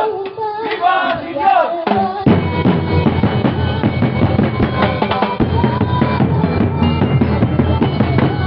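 Festival drum band playing: bass and snare drums beating a dense, driving rhythm. A wavering melody line sounds over the drums for about the first two seconds.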